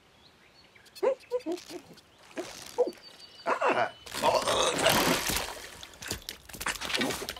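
Animated cartoon sound effects: a run of short pitched croak-like calls from about a second in, then a louder rushing, splashing noise from about four seconds in lasting about two seconds, followed by more short calls.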